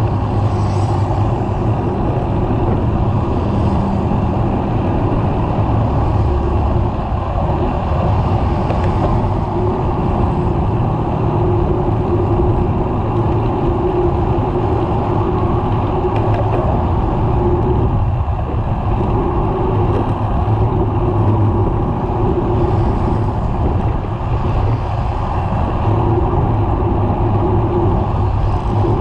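Steady rush of wind and road noise on a bicycle-mounted action camera while riding, with motor traffic passing alongside.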